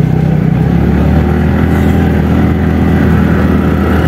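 Motorcycle engine running steadily under way, heard from on the bike.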